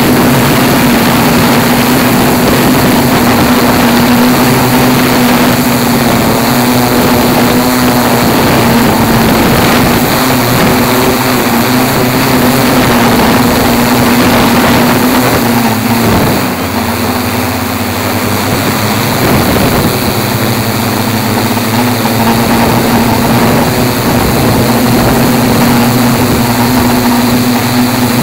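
Tarot 680Pro hexacopter's six electric motors and propellers hovering: a loud, steady drone with one constant hum. It eases slightly for a few seconds a little past halfway, then comes back up.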